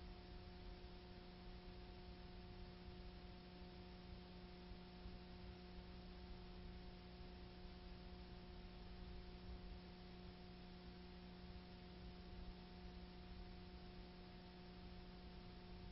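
Near silence: a faint, steady electrical hum over even hiss, with no other sound.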